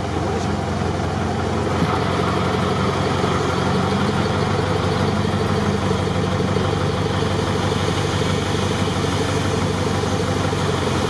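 Off-road vehicle engine idling close by, a steady low drone with no change in revs.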